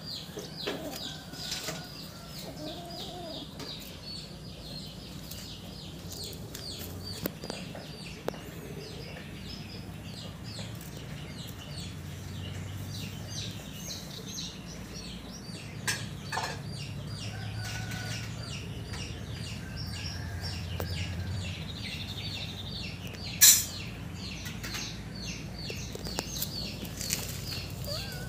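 Constant rapid high-pitched chirping, dense and unbroken, with a single sharp knock about 23 seconds in.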